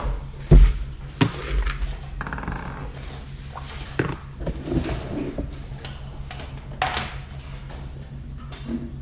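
Handling noises of Play-Doh and a plastic cupcake mould worked in the hands: scattered light clicks and taps, the loudest about half a second in, and a brief rustle a little after two seconds, over a steady low hum.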